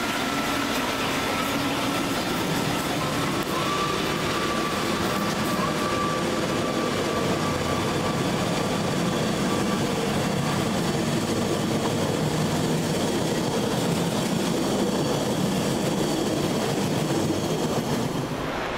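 Trenitalia Intercity passenger coaches rolling past, a steady noise of wheels running on the rails, with a thin high whine through the first several seconds. The sound drops away near the end.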